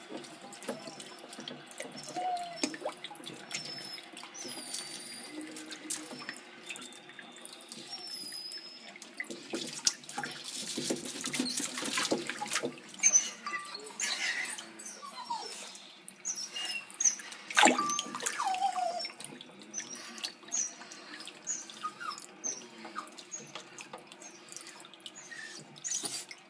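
Water splashing and sloshing in a reptile tank as a red-eared slider and a young American alligator move through it, with heavier splashing about ten to thirteen seconds in and one sharp splash near eighteen seconds. Many short, high squeaks are scattered through it.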